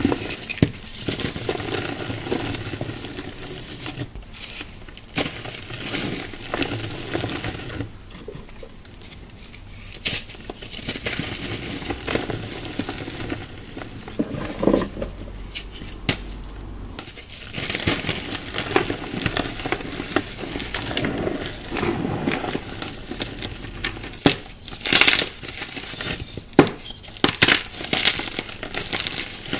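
Hands crushing and crumbling dry chalky blocks and loose powder, the soft fizzing crumble called a "foamy sizzle", with sharper crunches of harder pieces breaking near the end.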